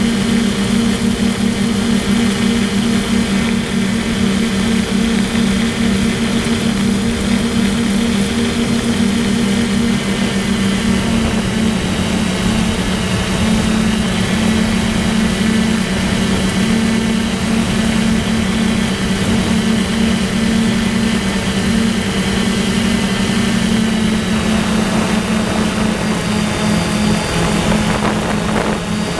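DJI F450 quadcopter's motors and propellers humming steadily in flight, as picked up by its onboard camera. The pitch shifts slightly about ten seconds in and again near the end as the motor speeds change during the descent.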